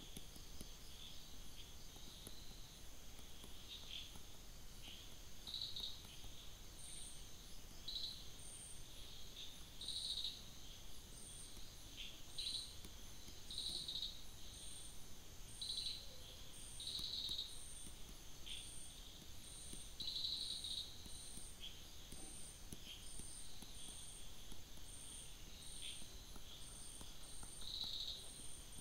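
Faint insect chirping: a steady high trill, with a short chirp repeating about once a second from about a quarter of the way in, and louder chirps every couple of seconds.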